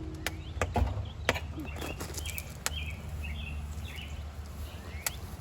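Small birds chirping repeatedly in short calls, with scattered sharp clicks and a steady low hum underneath.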